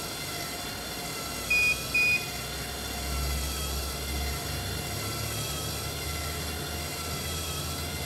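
Two short electronic beeps from a SupNIR portable near-infrared analyzer, half a second apart about 1.5 s in, as a measurement runs. A faint steady background of soft sustained tones sits under them, and a low hum swells from about 3 to 4.5 s.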